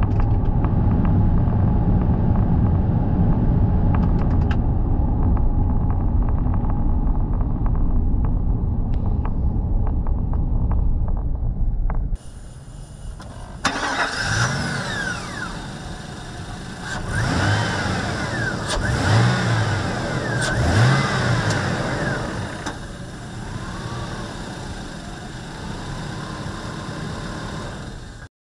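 Steady engine and road noise heard inside the cab of a 2000 GMC Sierra 1500 pickup on the move. About twelve seconds in it changes to the truck's engine running under the open hood, revved several times in short rises and falls and then settling back to idle.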